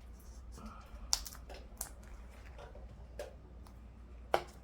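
Scattered light clicks and taps from handling a paper planner and its pages, with a few sharper ticks about a second in and near the end.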